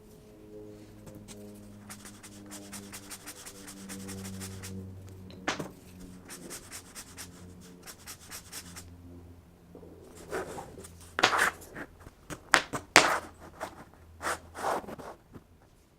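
Pen scratching across paper in quick, light strokes, then several louder, longer strokes near the end, over soft sustained background music.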